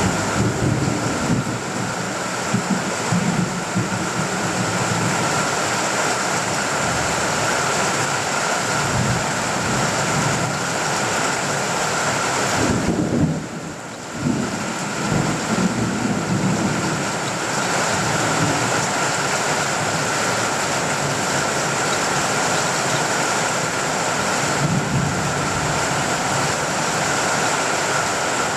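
Steady heavy rain drumming on a tin roof, with low rumbles of distant thunder swelling up several times. The rain briefly drops away about halfway through, then comes back.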